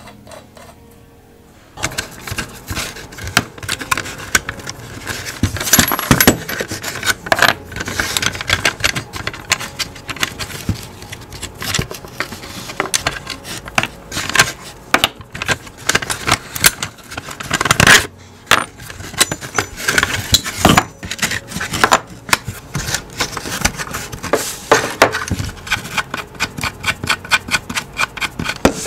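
Small metal bicycle parts clinking and rattling as a brake backplate with its shoes and springs is taken apart by hand: a busy run of irregular metallic clicks and knocks that starts about two seconds in.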